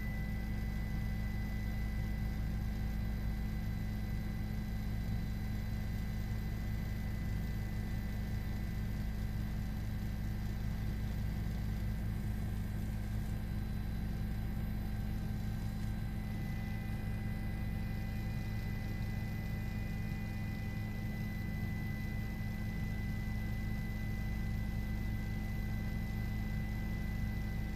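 Steady drone of a news helicopter's engine and rotor, with a thin steady whine above it.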